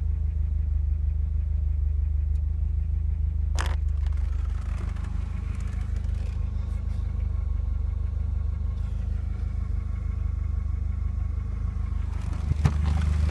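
Volvo 740's B230FT 2.3-litre turbocharged four-cylinder idling roughly on petrol: a steady low run with an uneven pulse, the sign of a misfire. A short scrape about three and a half seconds in and a sharp click near the end.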